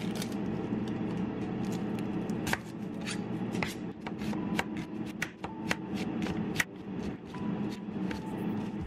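Knife slicing through an onion onto a plastic cutting board: a string of sharp, irregular knocks, with the onion's papery skin being peeled and rustled at the start.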